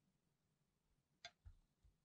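A faint, sharp click as a steel rod is set down on the anvil of a cast-iron bench vise, followed by a soft low knock and a smaller one.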